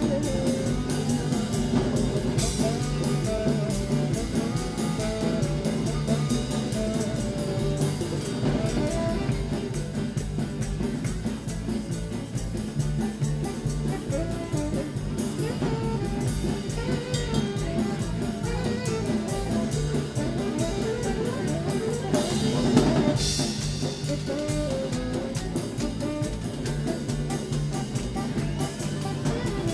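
A live jazz-rock band jamming, with a drum kit keeping the beat under saxophone and other horns. A louder accent comes about 23 seconds in.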